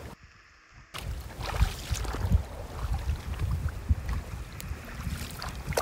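Wind buffeting the microphone with a low, uneven rumble, over the rustle and slosh of weeds being pulled out of flooded paddy mud by hand. It starts about a second in and cuts off suddenly at the end.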